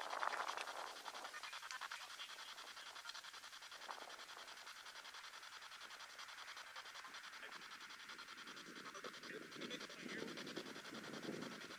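SB7 spirit box sweeping through radio frequencies: a steady choppy static hiss with fast, even clicking. From about two-thirds of the way in, lower rushing bursts join it.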